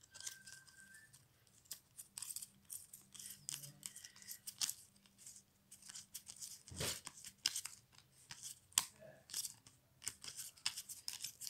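A hand-held stack of glossy football trading cards being flicked through, the cards sliding and snapping against each other in quick, irregular crisp clicks and rustles, with one duller knock a little past the middle.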